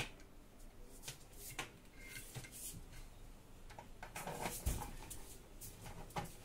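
Faint scattered clicks and knocks of 4 mm banana-plug test leads being handled and pushed into the terminals of a bench power supply, with a dull thump about two-thirds of the way through.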